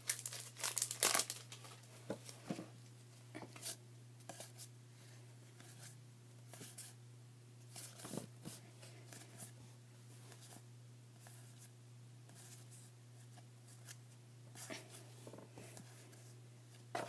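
Trading cards being handled and slid one by one through the hands, with a few louder crinkling rustles in the first second or so, then faint scattered flicks and rustles over a low steady hum.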